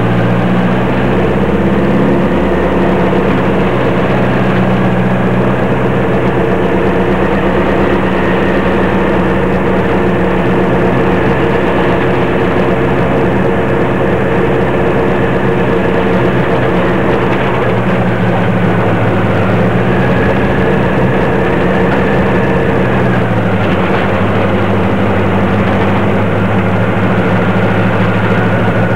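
Race pickup truck's engine running steadily at low speed, heard from inside the cab; the engine note steps down slightly late on.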